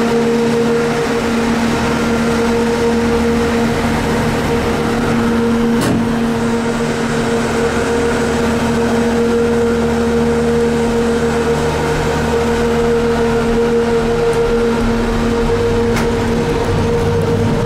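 Steady mechanical hum of the BreckConnect gondola in motion, with a strong low droning tone and two faint clicks, one about six seconds in and one near the end.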